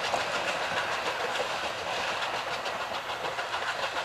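Steam locomotive working past with its train, the exhaust chuffing and the wheels clattering on the rails in a quick, even rhythm.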